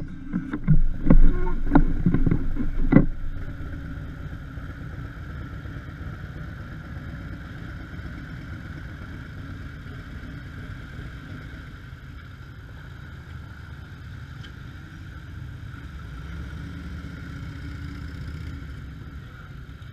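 Motorcycle engines: a touring motorcycle pulls away with a few loud bursts of throttle in the first three seconds, then a steady low engine rumble runs on at idle.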